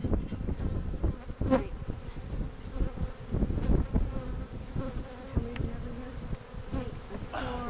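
Honeybees buzzing in and around an opened hive, a steady hum, with a few short knocks and scrapes from a hive tool working the frames.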